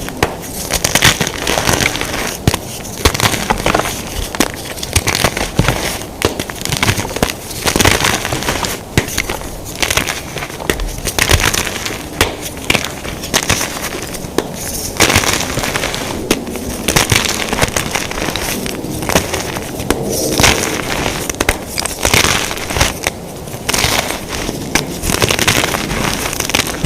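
Blocks of gym chalk being crushed and crumbled, a dense, continuous run of irregular crunching and crackling.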